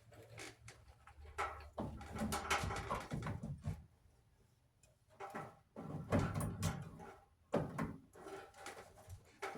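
Irregular knocks, clunks and rattles of metal parts and tools being handled while a clothes dryer is taken apart, with a short pause in the middle.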